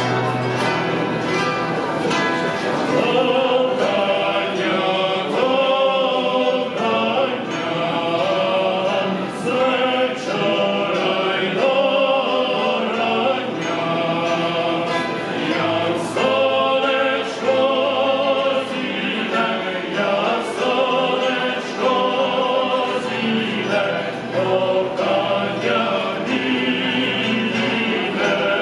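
Several banduras, Ukrainian plucked lutes, played together while men sing with them, a small group of male voices over the sharp, repeated plucked notes of the strings.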